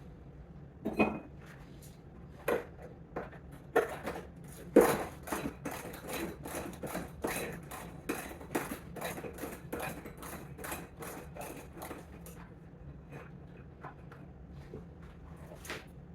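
Double ratchet wrench working small nuts loose: a few sharp metallic knocks, then a run of quick clicks about two to three a second for several seconds, thinning out near the end.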